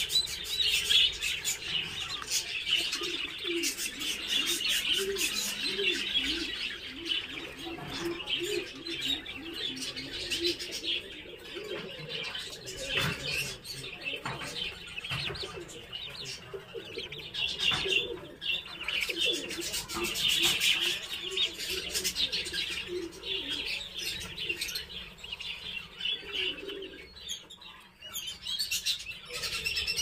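A group of turkey poults peeping and chirping without a break in high, thin calls. A quick string of lower, softer arched notes runs through the first half and returns briefly near the end, with scattered small clicks and scuffs.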